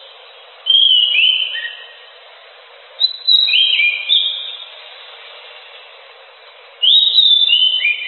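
Chestnut-backed thrush (anis macan) singing in three phrases a couple of seconds apart. Each phrase is a quick run of high whistled notes that slide down in pitch. A faint steady hiss runs under the song.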